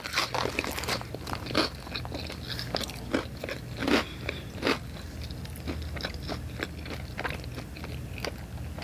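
Close-up mouth sounds of someone chewing crunchy pizza topped with hot Cheetos: irregular sharp crunches every fraction of a second, with the louder bites about 1.6 s, 4 s and 4.7 s in.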